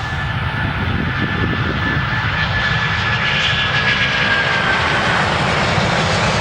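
Airliner engines running, a loud steady rush with a faint high whine that sinks slightly in pitch.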